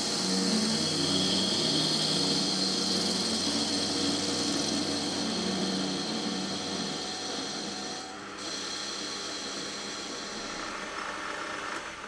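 A metal lathe runs and its tool cuts an aluminium part. It makes a steady motor whine with the hiss of the cut on top. The cutting hiss breaks off briefly about eight seconds in.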